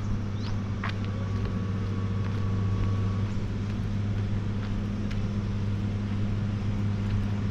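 An engine running steadily at idle, a low even hum with a few faint ticks over it.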